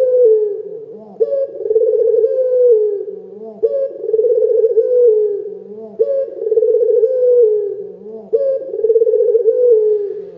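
Ringneck dove (Indonesian 'puter lokal') cooing loudly and persistently: a rolling coo repeated about every two and a half seconds, four times, each opening with a short sharp note and dropping in pitch at its end.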